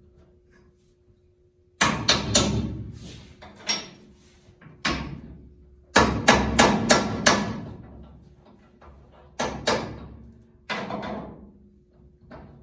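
Hammer striking metal in irregular bursts, each blow ringing briefly, with a quick run of about six strikes near the middle.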